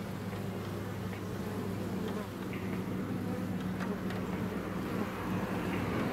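A swarm of honeybees flying in and out of a hive entrance, their wings making a steady low buzz, with a few faint short high chirps over it.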